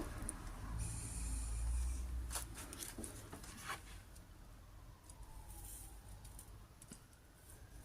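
Faint handling sounds of wires being soldered in a clamp: a few small clicks and light scraping, with a brief soft hiss early on as the iron meets the fluxed wires. A faint wavering whistle-like tone runs through the second half.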